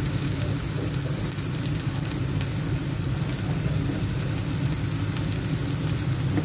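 Chicken strips sizzling in hot oil in a black griddle pan, a steady crackling hiss with a low hum underneath.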